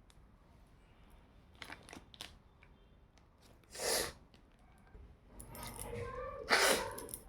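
Two sneezes: a short, sharp one about four seconds in, then a louder one near the end that comes after a brief voiced build-up. A few faint clicks come earlier.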